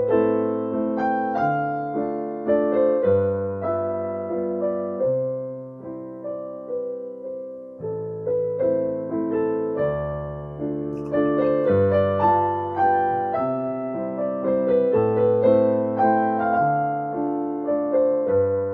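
Background piano music: a melody of struck notes, each left to ring and fade, over changing bass notes.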